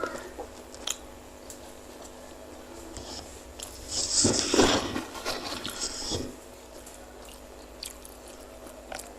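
Close-miked eating sounds from a person biting and chewing meatballs, with small mouth clicks. A louder, noisier burst of eating sound comes about four seconds in and lasts about two seconds.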